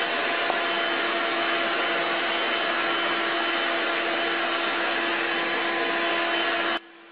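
Stick vacuum cleaner running steadily, a constant motor tone under the rush of air; it cuts off suddenly near the end.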